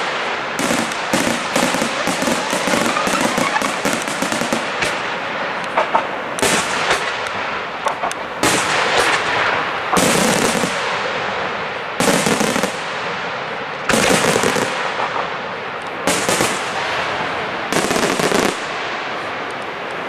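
Aerial firework shells bursting in a professional display. A dense, rapid crackle of small pops fills the first few seconds, then loud bangs come about every two seconds with crackling between them.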